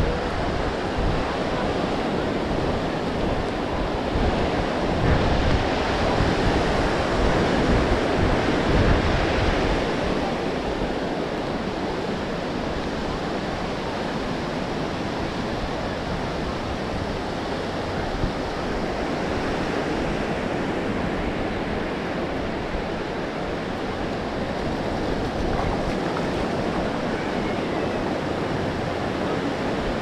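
Ocean surf washing onto the beach, with wind buffeting the microphone. The surf swells louder about five seconds in and eases again after about ten seconds.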